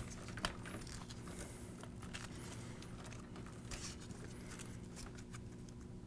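PC case cables being handled and bundled by hand: faint scattered rustling and light clicks over a low steady hum.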